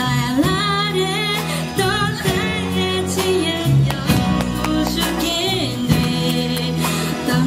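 A woman singing a melody with a live band: strummed acoustic guitars and an electric bass under her voice.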